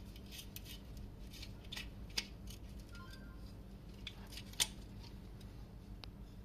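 A series of short, crisp clicks and snips from hand tools on the socket's plastic and wiring, the sharpest about two seconds in and the loudest near four and a half seconds in.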